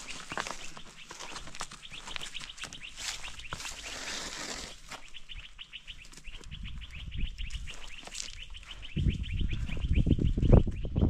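Small birds chirping in a rapid, even series of short high chirps. A low rumbling noise rises under them over the last couple of seconds.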